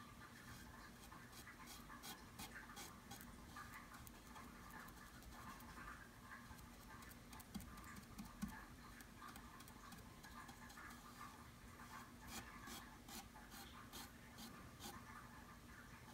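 Faint light taps and rubbing as a fingertip dabs and smooths wood filler into a flaw on a 3D-printed plastic part, over a faint steady hum.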